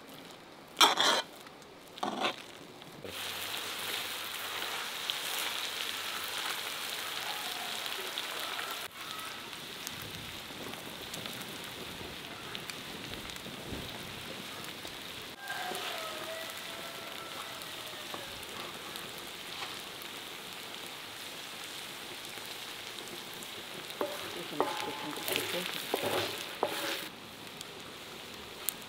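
A few knocks of a spoon in a pot of mashed potatoes, then sliced beef, onions and green peppers sizzling steadily in a large black wok-style pan. A few knocks and scrapes come near the end.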